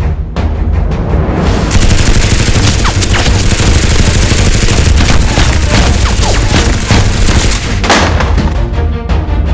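Background music with a dense barrage of rapid gunfire-like shots laid over it, starting about two seconds in and stopping abruptly near the end.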